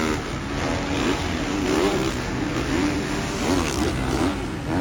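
Motocross bike engines on the track, revving up and down as riders work the throttle over the jumps, the pitch rising and falling repeatedly.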